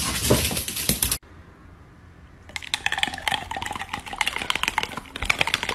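A dog's claws clattering in rapid clicks on a hard wooden floor, cut off abruptly about a second in. After a short lull, a long run of rapid clicks and crunches as a dog chews something close up.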